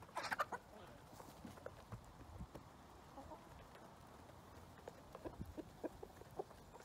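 Chickens: a brief cluck right at the start, then faint scattered taps and clicks that cluster near the end.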